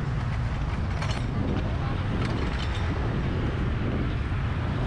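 Outdoor street ambience: a steady low rumble with faint voices of people nearby.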